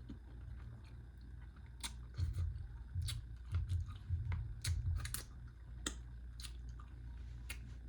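Close-miked chewing of a burrito, with wet mouth smacks and clicks coming at irregular intervals over a low steady hum.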